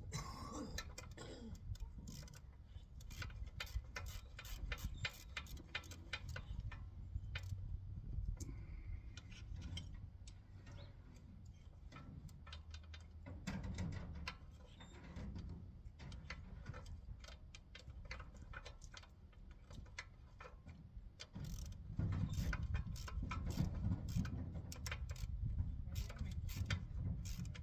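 Runs of rapid clicking from hand tools at work on a garden tiller's small engine, with low knocks and rumble between. The clicking is densest in the first few seconds and again in the last several.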